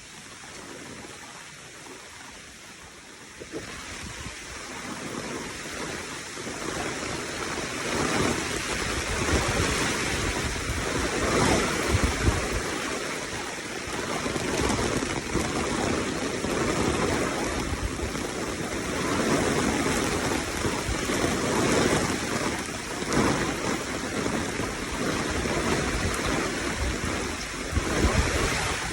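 Rushing water, a steady wash that grows louder over the first several seconds and then holds, with low rumbles of wind on the microphone.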